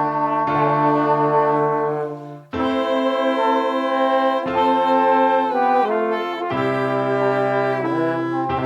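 Brass instruments, trombone and trumpet among them, playing slow sustained chords phrase by phrase, with short breaks between phrases.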